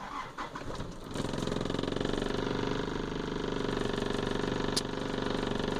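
Toyota Corolla 2.0D's four-cylinder diesel engine cold-started after glow-plug preheating: the starter cranks for about a second, the engine catches and settles into a steady idle. A short click near the end.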